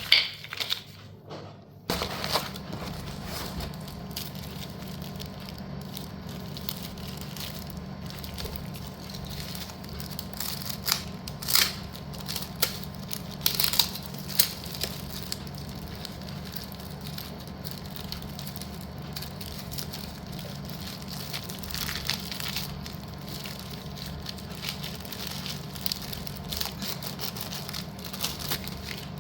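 Slate pencil pieces and their plastic packets being handled, giving scattered clicks, crunches and crinkles, louder for a few seconds in the middle, over a steady low hum.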